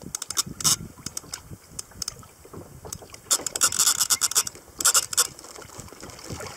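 Irregular knocks, scrapes and splashes on and around a kayak as a hooked tope pulls it about, with a denser rush of noise about halfway through.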